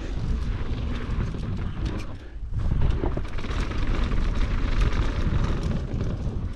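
Riding noise from a GT Fury downhill mountain bike rolling fast down a dirt trail: a heavy low rumble of wind on the microphone and tyres on the dirt, with constant rattling and clatter from the bike. A brief lull about two seconds in, then the rumble returns at full strength.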